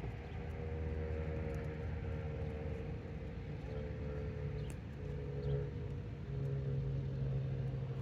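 An engine running with a steady low rumble and hum, growing a little stronger near the end.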